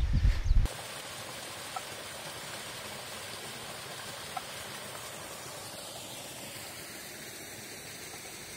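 Steady rush of a waterfall, an even continuous hiss of falling water.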